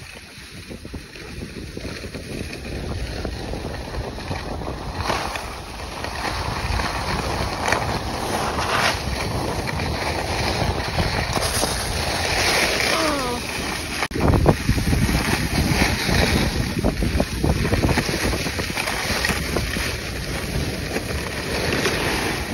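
Wind rushing over a phone's microphone while riding downhill, with the steady hiss and scrape of sliding over packed snow. A sharp knock about fourteen seconds in.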